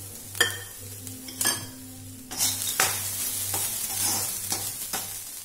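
A steel spoon stirring and scraping grated coconut with roasting sesame seeds and peanuts in a nonstick kadai, over a steady sizzling hiss, with several sharp knocks of the spoon against the pan.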